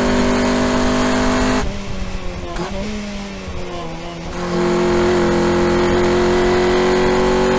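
Honda Civic's B18B1 1.8-litre four-cylinder, with header and aftermarket exhaust, heard from inside the cabin on track. It runs at high revs under throttle, goes quieter off throttle about one and a half seconds in with a brief rise and fall in revs partway through, then comes back on power at steady high revs about four and a half seconds in.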